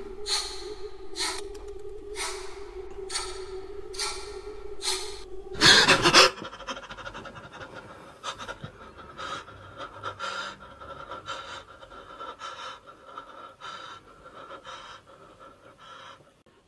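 A man panting heavily with short ragged breaths, about one a second, over a low steady drone. About six seconds in comes a sudden loud gasp, and the drone stops. The breaths then come quicker and fainter and fade away.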